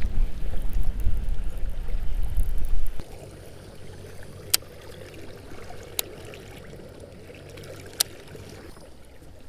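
Wind buffeting the microphone for about three seconds, then cutting off abruptly, leaving water lapping and trickling against the kayak's hull. Three sharp clicks come in the quieter part.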